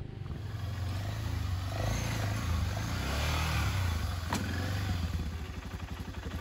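Off-road motorcycle engine running as the bike rides a muddy trail, with one sharp knock a little after four seconds in; the engine sound fades near the end.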